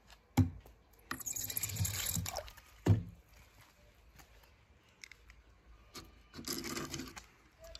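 Toy cars being handled: two sharp knocks about two and a half seconds apart, with a stretch of rushing, hissing noise between them and a shorter one near the end.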